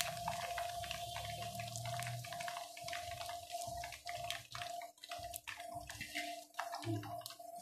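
Hot oil sizzling around chicken kabab pieces deep-frying, with a dense run of small crackling pops over a steady faint hum.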